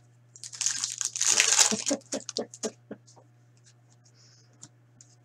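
Crinkling of a trading-card pack wrapper for about a second and a half, followed by a quick run of light clicks as the cards are handled.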